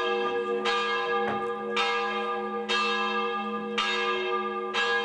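A bell tolling, struck about once a second, five strikes in all, each ringing on into the next over a steady low hum.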